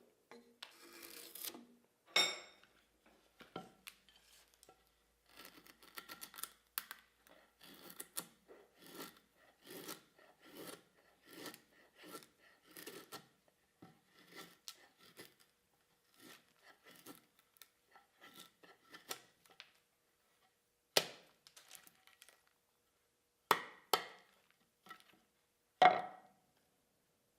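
Repeated short rubbing or scraping strokes by hand, about one or two a second, then four separate sharp knocks near the end.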